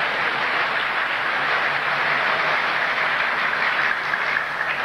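Audience applause: a steady clatter of many hands clapping that begins to ease off near the end.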